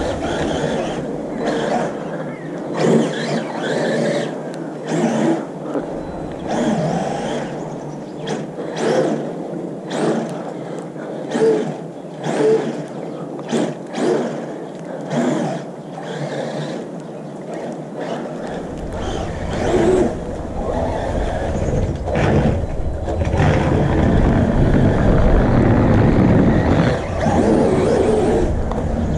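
Traxxas Maxx radio-controlled monster truck's brushless electric motor driving through snow in short, uneven bursts of throttle. About two-thirds of the way in, a heavy low rumble of wind on the microphone joins it and grows louder.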